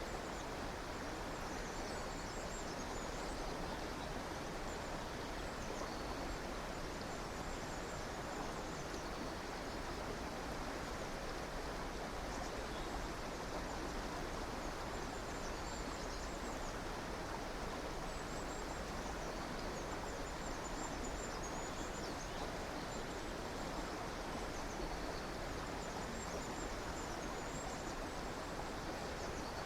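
River water running steadily, with faint high-pitched bird chirps coming in short clusters every few seconds.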